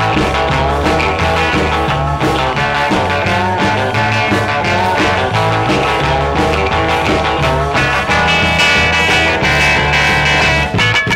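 Rock and roll electric guitar instrumental recording: electric guitar with bent notes over a steady bass line and drum beat.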